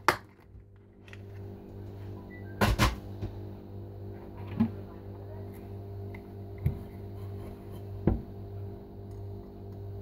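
Quiet background music with a steady low hum, broken by a few light knocks and clicks as tools and a plastic parts organizer are handled. The loudest is a double knock about three seconds in.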